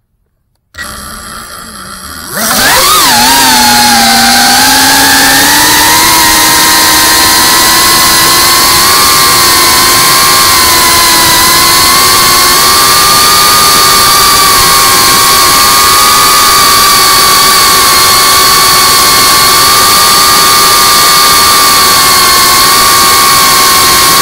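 FPV quadcopter's brushless motors and propellers, recorded by its onboard camera. Quiet about a second in, they jump to a loud, steady high whine about two and a half seconds in. The pitch dips briefly, then holds level through low, fast flight.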